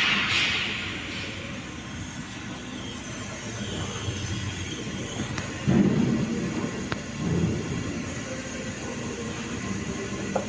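MIG welding arc on aluminum running with a steady hiss, swelling briefly twice around the middle.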